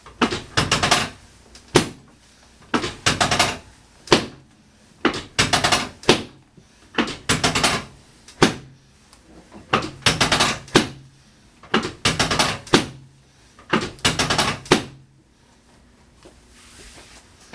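Drop section of a chiropractic table dropping again and again under the chiropractor's thrusts: sharp clunks, many with a quick rattle of extra knocks, about one a second, stopping about two seconds before the end.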